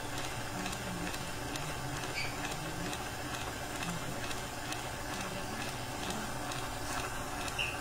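Electric stand mixer running steadily, its wire whisk whipping cream in a stainless steel bowl, with a constant motor whir.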